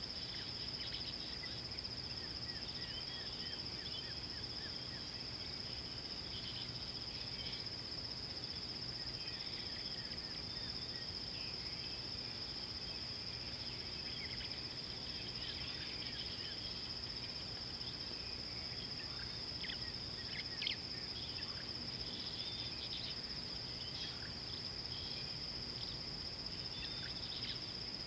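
Steady, unbroken high-pitched drone of insects in the bush, with scattered short bird chirps and calls over it and a faint low hum underneath.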